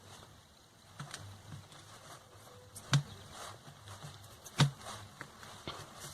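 Handling noises from craft work on a table: scattered light taps and rustles, with two sharper knocks about three and four and a half seconds in.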